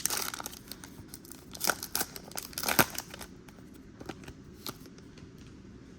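Wrapper of a trading-card pack being torn open and crinkled, in a run of crackly rustles that stops after about three seconds, followed by a few faint clicks.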